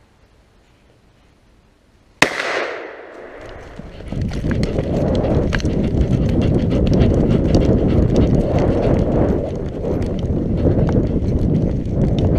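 A single shotgun shot about two seconds in, sharp with a short echoing tail. From about four seconds, fast running footsteps on a gravel track under a loud low rumble of movement noise, with many small crunches and clicks.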